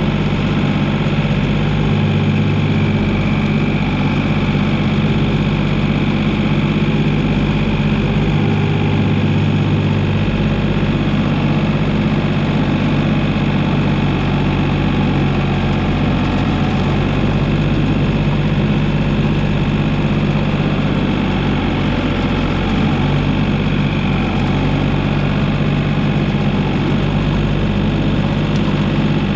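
Komatsu PC28 mini excavator's diesel engine running steadily with an even low hum.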